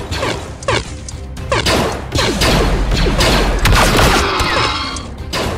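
Blaster fire sound effects in a battle: rapid shots that each fall quickly in pitch, with hits and crashes and a low rumble through the middle, over background music.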